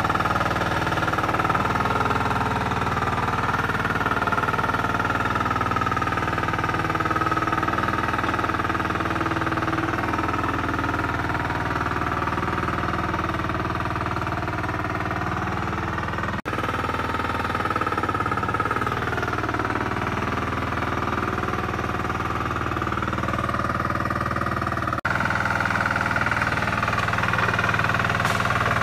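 Super Kama 14 HP single-cylinder diesel engine running steadily under load, driving a Boyeth turtle mud tractor through deep paddy mud. The sound drops out for a moment twice.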